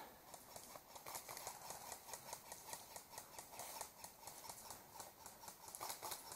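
Faint, irregular clicks and taps, several a second, after a brief louder burst at the very start.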